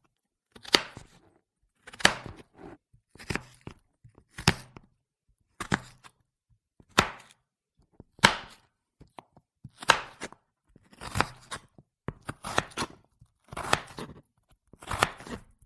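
Vegetables being chopped with a knife, in slow separate cuts about one every 1.2 seconds, each a short crisp cluster of clicks.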